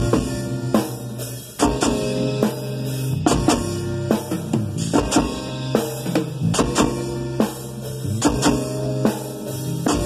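Live band playing at a sound check: drum kit hits, with kick, snare and cymbals, keeping a steady beat over held bass notes and other pitched instruments.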